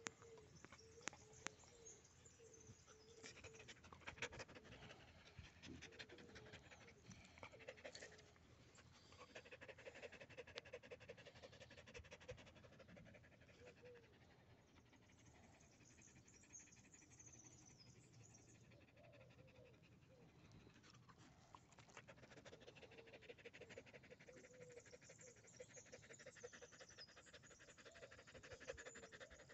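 A dog panting faintly and quickly with its mouth open, close to the microphone. Scattered rustles, mostly in the first several seconds, as its fur brushes against the phone.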